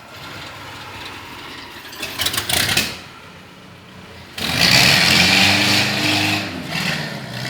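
A 1984 Chevrolet Opala Diplomata's four-cylinder engine idling with a rumble. A brief louder patch comes about two seconds in, and it turns much louder from a little past halfway and stays loud.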